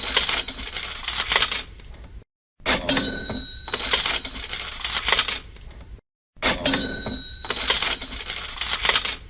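Cash register sound effect on a loop: a bell ring, then coins jingling into the drawer. It repeats about every four seconds, with a short silent gap before each new ring, near a third of the way in and again about two-thirds of the way in.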